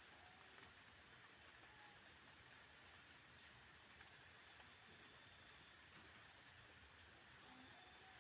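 Faint light rain falling: a steady soft hiss with scattered small drops.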